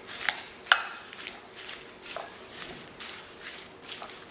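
Metal spoon stirring a black bean, corn and cilantro mixture in a glass bowl: irregular clinks and scrapes of the spoon against the glass, with one sharper clink near the start.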